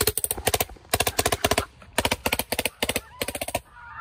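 Tippmann paintball gun firing on full auto: about six rapid bursts of quick shots, which stop shortly before the end.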